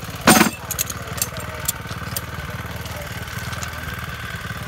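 Small petrol engine of a Cambodian bamboo train (norry) idling steadily, with a loud metallic clank about a third of a second in as a metal wheel axle is lifted off the rail, then a few lighter knocks.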